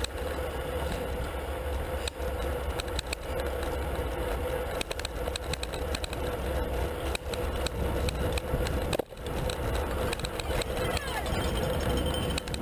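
Wind rush and road noise on a road bicycle's handlebar-mounted camera, riding in a racing pack, with a steady hum and many scattered clicks and rattles.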